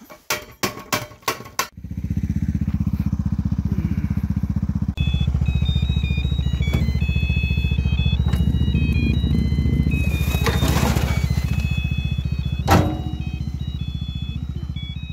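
A few clicks, then a motor starts about two seconds in and runs steadily with a loud, even low hum, with one sharp knock near the end.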